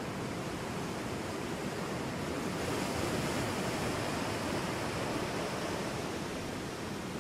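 A recording of ocean waves rolling onto a shore: a steady rush of surf with a constant hiss, swelling a little about three seconds in.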